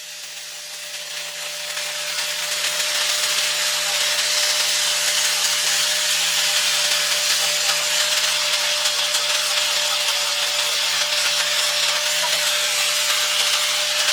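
An electric power tool runs steadily against wood, giving an even hiss over a constant hum. It grows louder over the first couple of seconds, then holds steady.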